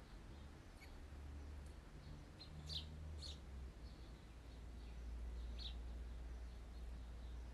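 Faint ambient birdsong: several short, high chirps scattered through, over a low steady hum.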